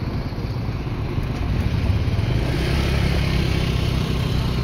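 Motor engine running steadily with a low hum, growing louder from about two seconds in and easing near the end.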